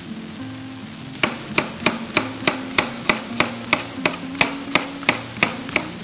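Kitchen knife chopping onion on a cutting board, mincing it finely: even strokes about three a second, starting about a second in.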